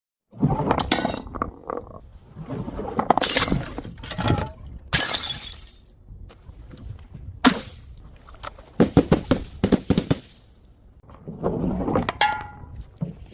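Glass bottles being smashed and crushed, one after another: about six separate bouts of breaking and crunching glass, with clinking shards and, near the end, a brief ringing of glass.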